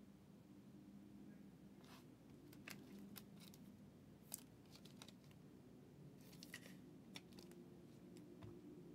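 Near silence with a low steady hum and faint scattered clicks and rustles of trading cards and a clear plastic sleeve being handled.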